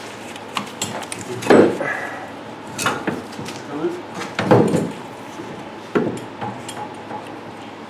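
C6 Corvette power steering rack knocking and clunking against surrounding metal parts as it is worked by hand into its mounts. The knocks are irregular, about five in all, with the sharpest about a second and a half in and another near the middle.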